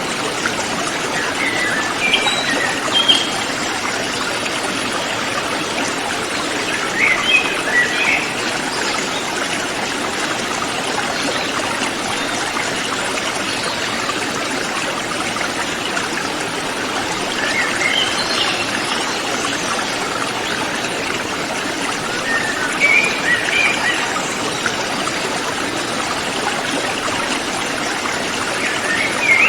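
River water flowing steadily, with a bird chirping in short high bursts five times over the flow.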